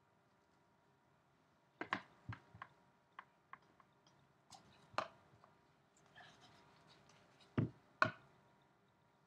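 Cardboard trading-card boxes and a stack of cards being handled and set down on a tabletop: a scatter of light taps and knocks, then two louder thumps near the end.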